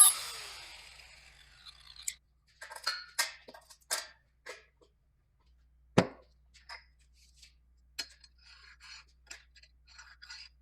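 A louder noise fades away over the first second or so, then scattered light clicks and taps follow, with one sharper knock about six seconds in.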